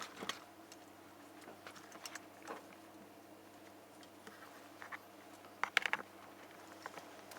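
Scattered light clicks from the dryer's control panel being worked, a few near the start and a louder quick cluster near the end, over a faint steady hum.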